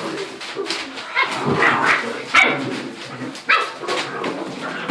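A litter of seven-week-old puppies barking and calling over one another in many short, overlapping bursts.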